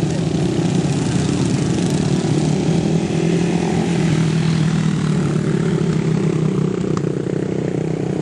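Racing quad bikes running on a dirt circuit, several engines blending into one steady drone.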